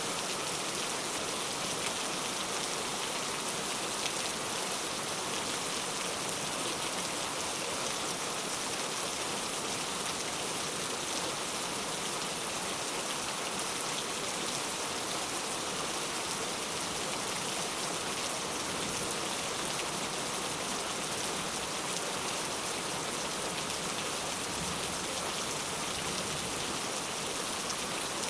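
Steady rain falling on a surface, an even hiss of many fine drops with no thunder or sudden sounds.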